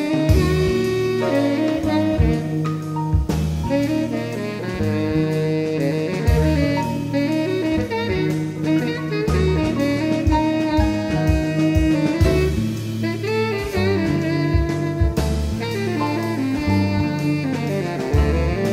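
Jazz band recording: a saxophone plays the melody in long held notes over a bass line and drum kit.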